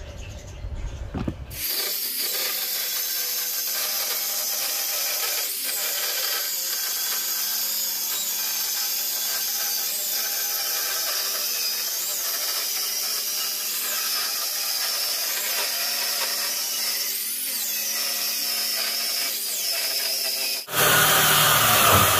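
Handheld power saw cutting through wood, its motor running steadily under load. About twenty seconds in, the sound jumps suddenly much louder and fuller.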